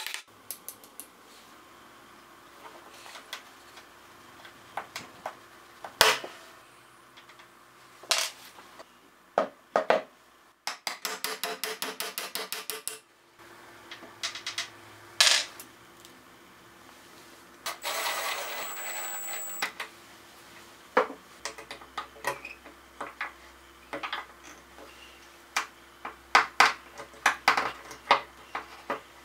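Hand tools working wooden dowels in a board: scattered sharp taps, knocks and clicks of a wooden mallet and steel end-cutting pliers against wood. One loud knock comes about six seconds in, a fast run of rattling clicks around the middle, and a quick string of clicks near the end.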